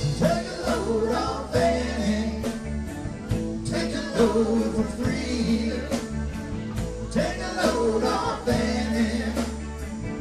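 Live rock band music: drums, bass, guitar and keyboards playing a steady beat, with singing.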